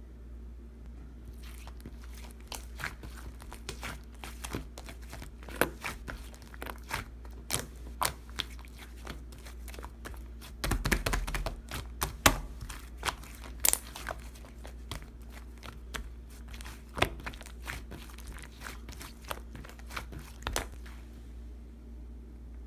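Slime being pressed, poked and squished by hand, giving irregular sharp crackling clicks and pops, with a denser run of crackles about halfway through. A steady low hum sits underneath.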